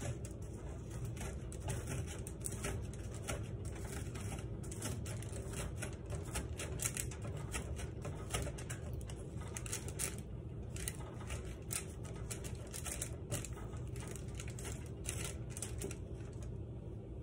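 A utensil scraping the flesh of a baked spaghetti squash into strands: a fast, irregular run of scratchy scrapes and light clicks, with brief pauses between strokes.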